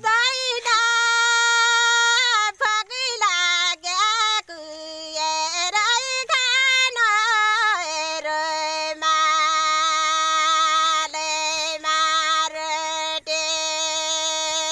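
A woman singing solo in the Nepali thadi bhaka folk style: a high held note, then quick wavering ornaments, then a long steady lower note held from about halfway through.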